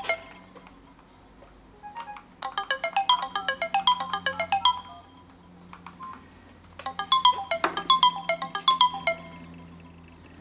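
Samsung Galaxy smartphone ringing with a bright melodic tone: a short run of quick plucked-sounding notes about two seconds long, repeated after a pause of about two seconds.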